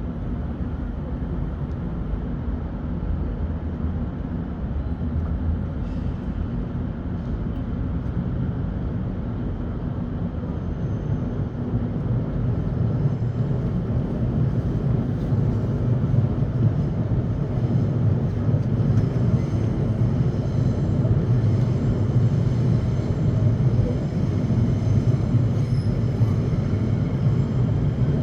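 Train rumbling steadily, a low rumble that grows gradually louder over the second half.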